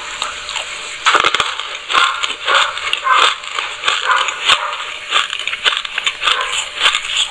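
Close-miked crunchy chewing of a mouthful of black sesame seeds: a dense crackle that swells with each chew, about two chews a second.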